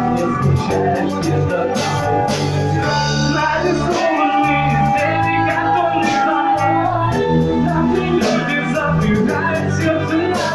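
Rock song played by a band: bass notes, a steady drum-kit beat and guitar, with one long held note in the middle.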